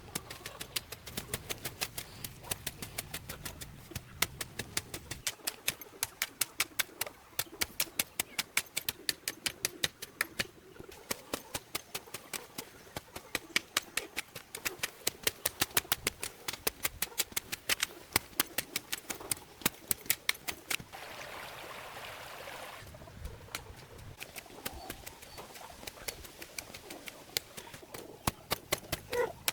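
Rapid, irregular clicking or tapping, several sharp clicks a second, with a short stretch of hiss partway through.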